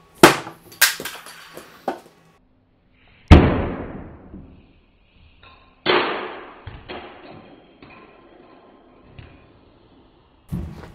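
Sharp knocks and clattering from a small 3D-printed plastic Cybertruck model being struck in a window-smash test and knocked off its board. Several quick knocks come first, then two heavier hits, each trailing off in a clatter, and one more knock near the end.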